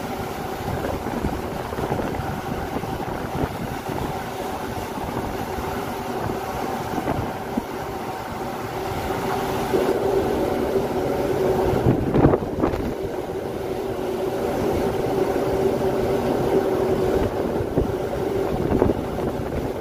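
Steady drone of a ship's engine and deck machinery, with wind blowing on the microphone. A short louder noise comes about twelve seconds in.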